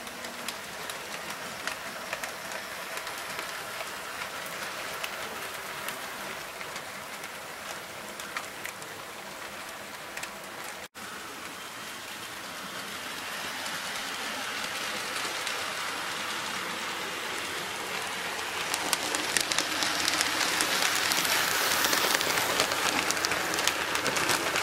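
HO scale model train with two steam locomotives running on the layout's track: a steady rattle of many small clicks from the wheels on the rails. It grows louder from about halfway and is loudest near the end as the locomotives come close.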